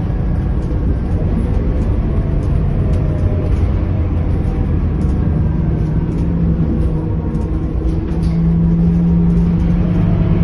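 Scania K230UB city bus heard from inside the passenger cabin while driving: the rear-mounted five-cylinder diesel engine's steady low drone mixed with road rumble. A steady engine tone comes up about halfway through and the engine grows louder about eight seconds in.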